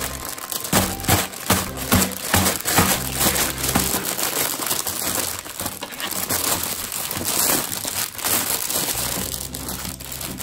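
Clear plastic bag crinkling in irregular bursts as it is handled and plastic dinosaur toys are pulled out of it.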